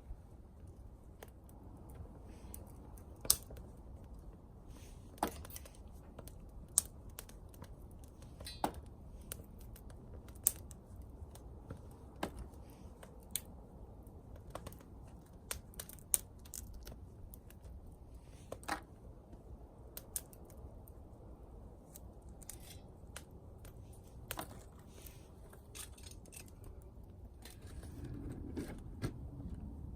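Wood fire crackling in a small camping wood stove: irregular sharp pops of burning twigs, one every second or two, over a faint low rumble.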